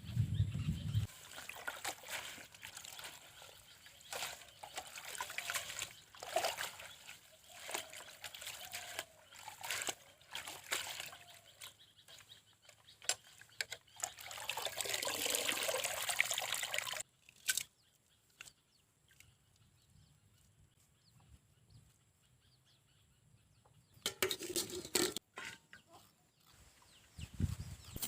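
Cooking-prep sounds: scattered clicks and knocks of handling, and a few seconds of liquid trickling or pouring about halfway through.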